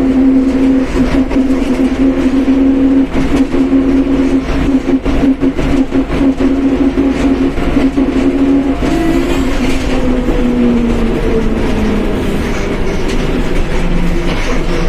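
Mercedes-Benz OF1721 BlueTec 5 bus under way, its differential giving a steady whine over rumble and rattle. In the second half the whine drops in pitch in a couple of steps.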